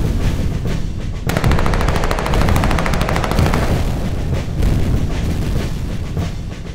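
Battle sound effect: rapid machine-gun fire over a continuous low rumble, with the densest, longest burst starting about a second in.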